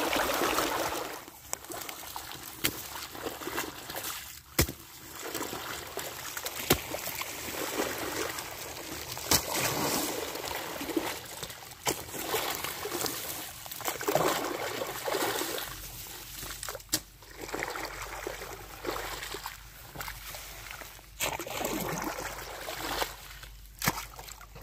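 Muddy irrigation water rushing across a field. About a second in it gives way to a quieter flowing channel, with splashing and sloshing as a long-handled hoe scoops wet mud along the channel bank, and a few sharp knocks.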